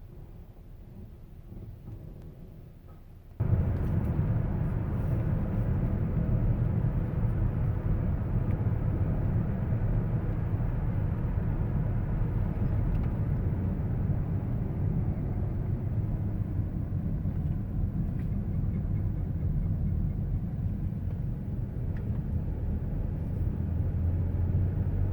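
Buick car on the move: a steady low road and tyre rumble that comes in suddenly about three seconds in, with a few faint scattered clicks over it. The owner complains of creaking and knocking noises since a tire rotation.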